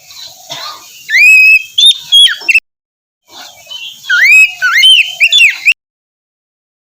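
Oriental magpie-robin (kacer) singing loud, rich whistled phrases with quick rising and falling notes. It comes in two bursts, broken by a short silence, and stops about two seconds before the end.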